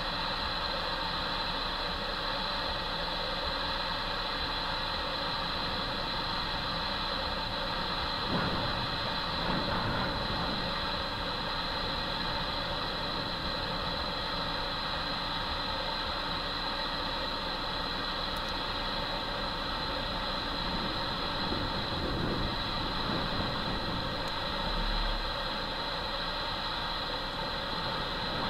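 Jet engines of a twin-engine airliner landing and rolling out, a steady high whine over a low rumble with a few small swells.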